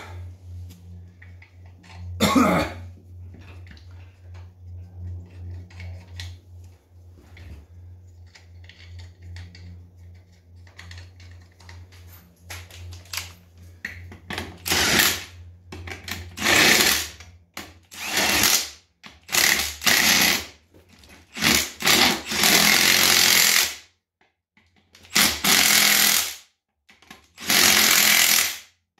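Cordless impact wrench hammering the lug nuts of an ATV wheel tight, in a run of about nine short bursts through the second half. Before that there is only a steady low hum and a few knocks.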